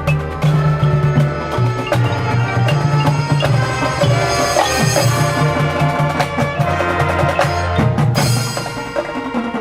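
Marching band performing: sustained pitched notes under frequent sharp percussion hits.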